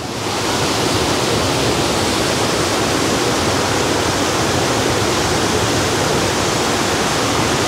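A strong stream of water rushing and splashing over rocks in a steady, loud rush.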